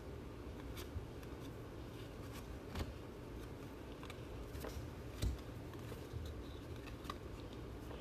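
Soft handling of trading cards and pack wrappers: light slides and rustles with a few scattered small ticks, over a low steady room hum.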